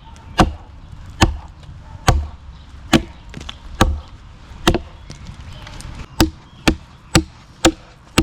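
Axe chopping a notch into a log: about eleven sharp strikes into the wood. They fall at a steady pace of just over one a second, then quicken to about two a second near the end.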